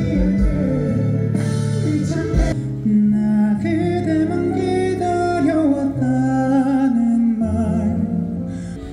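Live concert music played through a stage sound system: a male singer holding long, wavering notes over a band.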